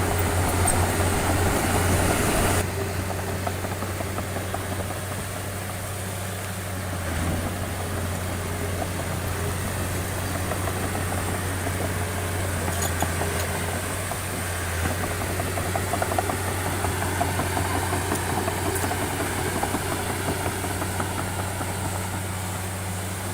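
Diesel engine of a heavy earthmoving machine running steadily with a low drone. It is somewhat louder for the first couple of seconds, then settles about two and a half seconds in.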